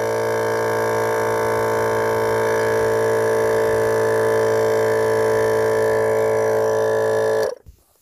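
Twin-cylinder 12V car tyre-inflator air compressor, running off a Parkside 12V tool battery, runs steadily under load while inflating a soccer ball. It cuts off abruptly near the end.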